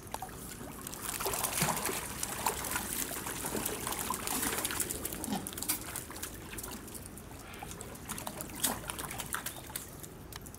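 Water pouring down a concrete ledge into a penguin pool, a steady trickling and splashing that picks up about a second in, with many small sharp splashes throughout.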